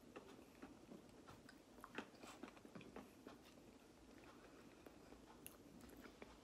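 Near silence with faint chewing of soft iced pastry cakes (festive Bakewell tarts): small scattered mouth clicks and smacks, the clearest about two seconds in.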